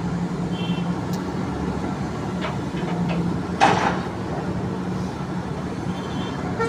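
Backhoe engine running steadily under work. A short, loud burst of noise breaks in a little past halfway.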